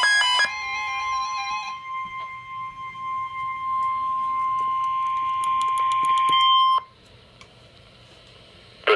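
The last of the warbling digital header bursts of an emergency alert, then a single steady attention tone of about 1050 Hz that holds for about six seconds and cuts off suddenly, leaving faint radio hiss. This is the tone that precedes a NOAA Weather Radio emergency alert message.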